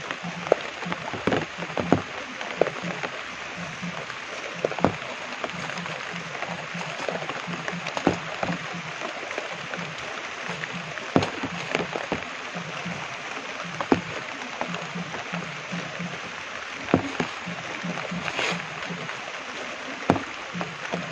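Steady rain hissing, with sharp taps of large drops scattered about once a second. A low, rapidly pulsing sound runs underneath.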